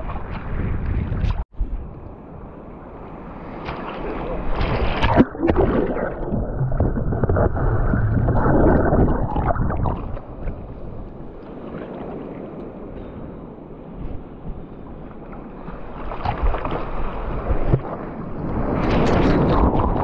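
Surf water sloshing and splashing around a camera in a waterproof housing, heard muffled and rising and falling with the sea. There is a brief dropout about a second and a half in and a sharp knock about five seconds in.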